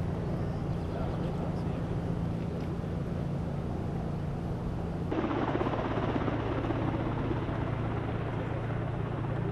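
Steady low engine drone. At about five seconds it cuts to a second steady, lower-pitched drone with more rushing noise on top.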